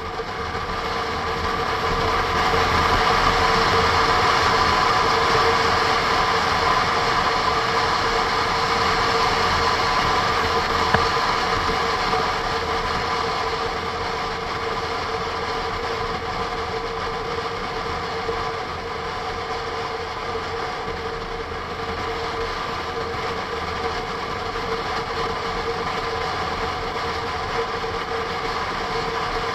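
Honda NC 750 S DCT motorcycle's parallel-twin engine running under way, with wind rush on the onboard action camera: a steady drone carrying a few level tones. It swells over the first few seconds, then eases off gradually from about twelve seconds in.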